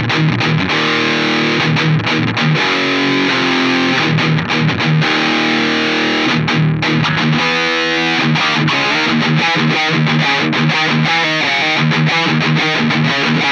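Electric guitar played through a Mooer GE 150 Pro multi-effects processor on a distorted patch, heard direct without a room. Full, sustained chords and riffs at a steady loud level.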